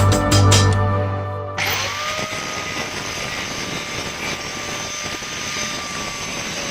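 Background music with a steady beat, cut off about one and a half seconds in. It gives way to a small motor running steadily with a faint held whine, the kind of sound a grass-cutting machine makes while running.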